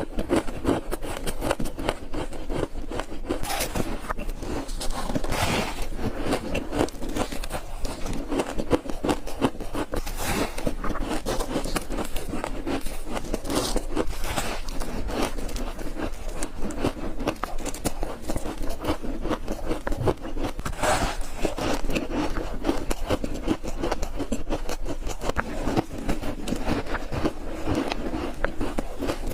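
Ice being bitten and chewed close to the microphone: a dense run of crisp crunching, with a louder bite every few seconds.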